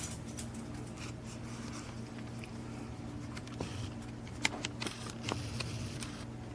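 Small clicks, taps and scraping handling noises over a steady low electrical hum, with one sharper tick about four and a half seconds in.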